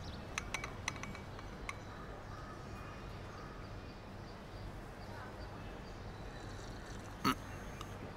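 Quiet room ambience with a few faint light clicks of a ceramic mug in the first two seconds, then one short sip of hot tea about seven seconds in.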